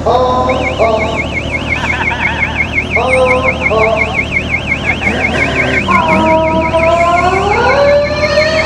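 An electronic siren warbling rapidly up and down, about five cycles a second, over motorcycle engines being revved several times.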